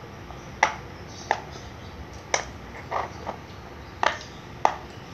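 Silicone Pop It fidget toy bubbles pressed one at a time, giving about seven short, sharp pops at uneven intervals.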